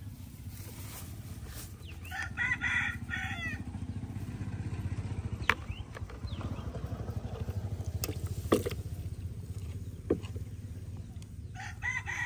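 A rooster crowing twice, once about two seconds in and again near the end, each crow a long pitched call. Three short sharp knocks fall between the crows and are the loudest sounds, over a steady low hum.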